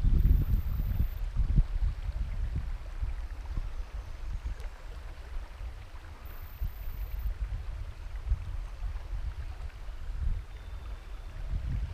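Flowing river water and wind on an action camera's microphone, heard as a low, uneven rumble with a faint rush above it. The rumble is loudest at first and eases after a few seconds.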